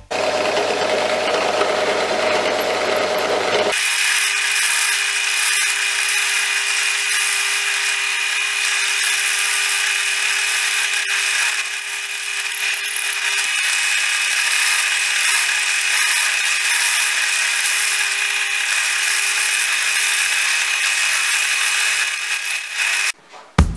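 Drill press running steadily and boring through an epoxy-resin handle scale cast with birch twigs, with a constant whine. For about the first four seconds a different steady noise comes before it.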